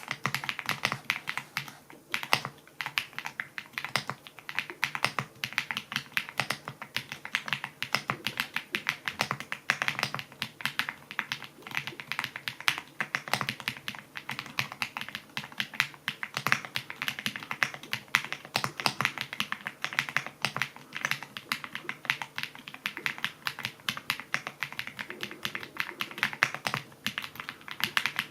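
Typing on a mechanical keyboard with pre-lubed XVX medium purple linear switches and double-shot PBT keycaps on an aluminium case: a quick, steady run of keystrokes.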